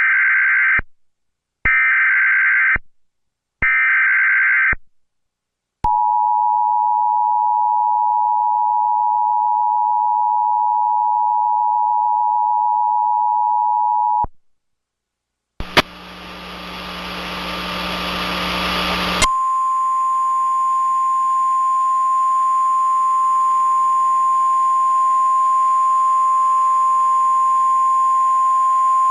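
Emergency Alert System tornado-warning tones. Three short screeching SAME data-header bursts come first, then the two-tone EAS attention signal, held for about eight seconds. After a brief gap there are a few seconds of static hiss, and then a steady single-pitch Weather Radio warning alarm tone.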